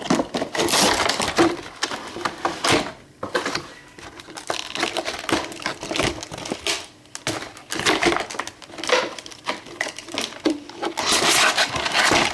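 Plastic and cardboard toy packaging being handled, with irregular crinkling, rustling and clicks.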